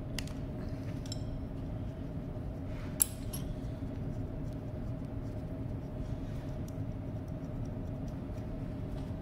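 Light metal clinks of a wrench and parts against a diesel fuel injection pump's housing, with one sharp click about three seconds in, over a steady hum.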